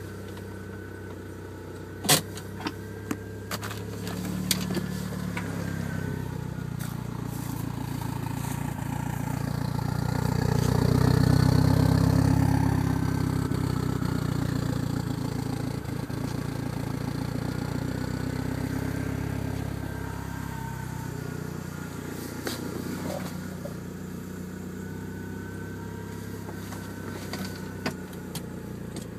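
A Mitsubishi DSM's four-cylinder engine running unevenly with the misfire and sputter that the owner describes as a lean idle. A few sharp clicks come about two seconds in, and the engine swells louder and higher for a few seconds midway before settling back to a lower run.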